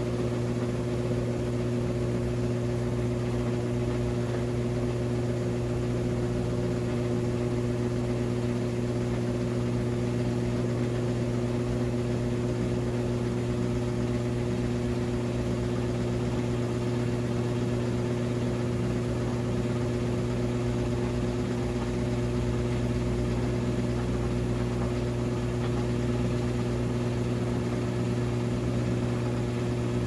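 Brastemp BWK14 14 kg top-load washing machine spinning a load of towels at full spin speed: a steady motor and drum hum with no knocking, a smooth spin.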